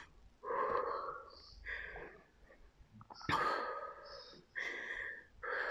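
A woman breathing hard and audibly through her mouth while holding a forearm plank: about five breaths in and out, roughly one a second.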